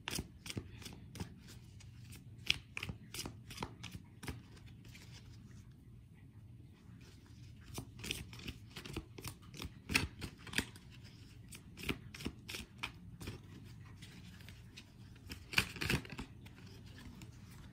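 Tarot cards being handled and shuffled: an irregular scatter of soft clicks and snaps of card stock, with a few louder ones in the middle and a cluster near the end.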